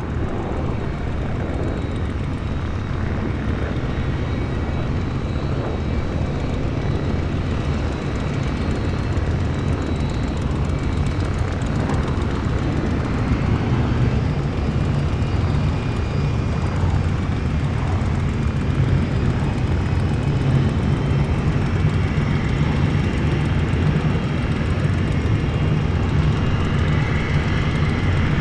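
Gas-turbine engine noise: a steady low drone with a faint high whine that rises slightly, getting gradually louder.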